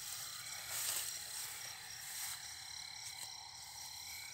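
Night chorus of insects and frogs: a steady high trill with a rapid, pulsing chirp over it, and a brief rustle of grass about a second in.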